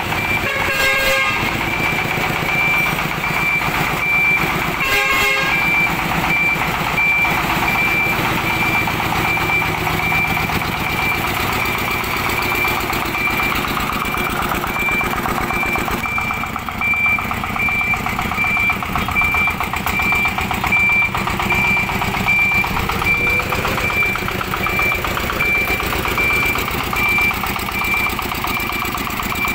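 An electronic beeper on a small farm tractor-style vehicle sounds a quick, evenly repeating single-pitch beep over the vehicle's running engine. Two short horn blasts come about one second and about five seconds in.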